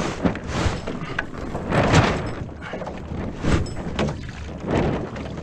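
Wind buffeting the microphone and water rushing past the hulls of a Viper F16 racing catamaran under sail, surging irregularly, with scattered knocks and thuds from the boat and rig.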